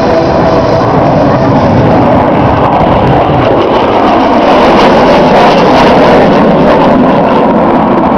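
Loud, steady jet noise from a General Dynamics F-111's twin Pratt & Whitney TF30 afterburning turbofans flying a display pass.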